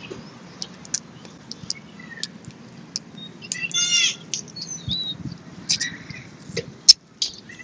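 Short cracks and clicks of boiled crawfish shells being broken and peeled by gloved hands, with one sharp crack near the end. A bird calls in the background, a quick burst of chirps about four seconds in.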